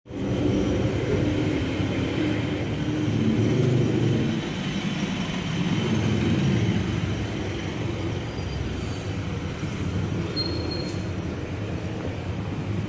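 Steady rumble of road traffic: passing vehicles blending into one continuous noise.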